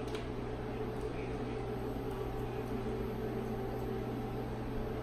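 Steady low machine hum with faint hiss, with a faint click just at the start.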